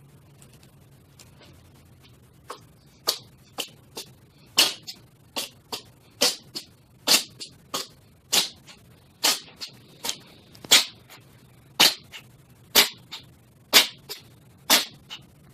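A cat sneezing over and over in a rapid fit of short, sharp sneezes, about two a second, starting about two and a half seconds in.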